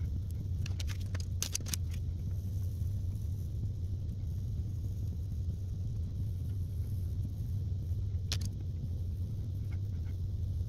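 A steady low hum, with a quick cluster of light clicks about a second in and one more click about eight seconds in.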